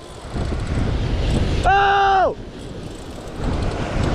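Surf surging against rocks, with wind buffeting the microphone. A little under two seconds in comes a short whine of about half a second that rises, holds and falls away.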